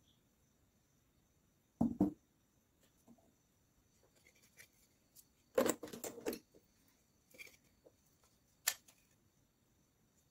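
Hands handling small metal parts and an abrasive cutting disc on a work mat: a pair of knocks about two seconds in, a short clatter around six seconds, and one sharp click near the end. The grinder motor is not running.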